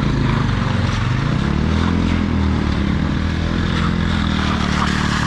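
Motorcycle engine running under way, its pitch dipping about a second in and rising again as the revs change.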